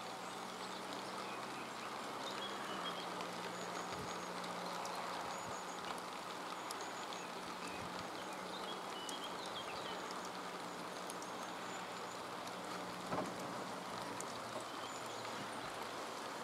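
Steady rain falling on a grassy meadow: an even hiss with scattered faint drop ticks, over a faint steady low hum. A soft knock about 13 seconds in.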